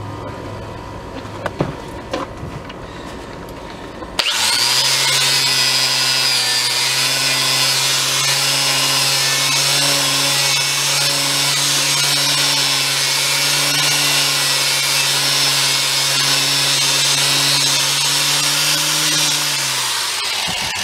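DeWalt corded angle grinder with a 4½-inch polishing disc, started about four seconds in after a few handling clicks. It runs at a steady high whine while polishing paint and primer buildup off a steel pintle hitch shaft, then spins down near the end.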